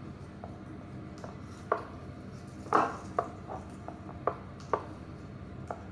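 Fresh basil leaves being plucked off a potted plant one at a time: a string of small, sharp snaps, about nine in all at uneven intervals, the loudest a little under halfway through.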